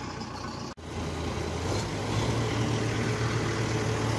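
Diesel engine of a Kubota DC-series rice combine harvester running steadily with a low hum. It breaks off for an instant about a second in, then comes back a little louder and holds.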